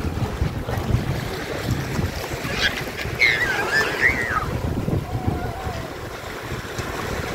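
Wind buffeting the microphone over shallow sea waves washing in and splashing around the wading children, with brief high-pitched squeals from a child about three seconds in.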